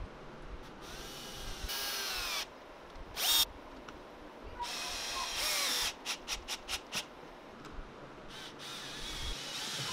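Electric drill spinning screw eyes into a wooden block through a coupling nut on a threaded rod, run in short trigger bursts with the whine rising as the motor speeds up. About six seconds in comes a run of about five quick pulses as the eye is snugged down.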